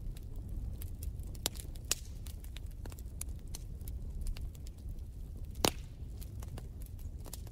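Wood fire crackling in a fireplace: irregular pops and snaps over a low steady rumble, with one louder pop about five and a half seconds in.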